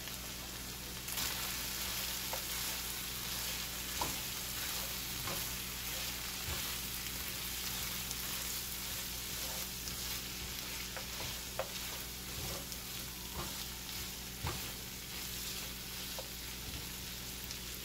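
Lamb pieces, onions and berbere sizzling in a nonstick frying pan, with a spatula stirring and turning them. The sizzle steps up about a second in, and the spatula taps and scrapes against the pan a few times.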